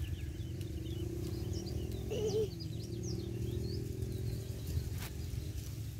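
Small birds chirping in short, high calls over a steady low rumble, with a single click about five seconds in.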